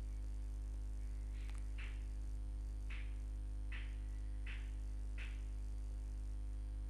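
Steady electrical mains hum and buzz in the recording, with about six faint, soft clicks scattered through it, fitting mouse clicks while windows are closed and switched on the computer.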